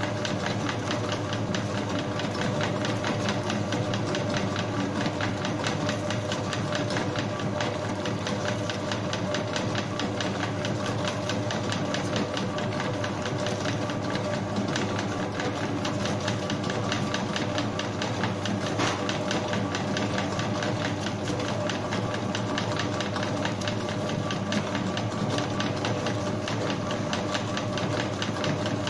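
Bakery spiral dough mixer running steadily, its motor humming and the hook and bowl giving a fast, even rattle as it works a large batch of bread dough that is still shaggy and floury, early in the mix.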